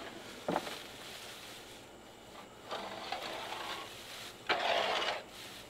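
Loose pine shavings being scraped off a wooden coop floor with a scoop and dropped into a wheelbarrow. There is a sharp knock about half a second in, then two longer rustling scrapes, the second the loudest.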